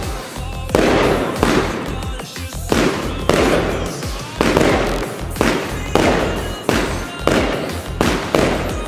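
Röder Feuerwerk Alpha Centauri fireworks compound firing a steady run of shots, about one and a half a second, each a sharp report that fades out in a crackling tail.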